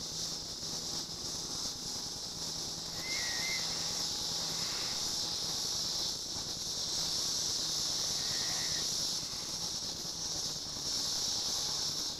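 A steady, high-pitched buzzing chorus of summer evening insects that swells and eases in loudness. Two short chirps sound over it, about three seconds in and again later, over a faint low hum.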